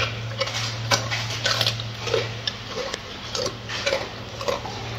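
Gorilla chewing lettuce: crisp crunches and wet mouth smacks at a steady rhythm, a little under two chews a second.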